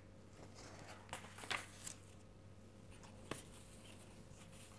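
Faint handling of paper sheets: a few soft rustles in the first two seconds and one light tick a little after three seconds in.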